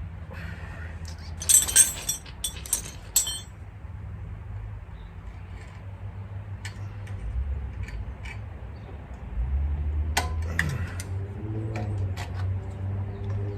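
Small metal tools and parts clinking and tapping, with a quick cluster of sharp clinks about two seconds in and scattered lighter taps later, over a steady low hum.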